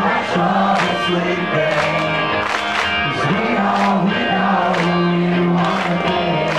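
Live rock band playing loud in a club, with a male singer, held guitar notes and a steady beat of drums and crashing cymbals, heard from within the crowd.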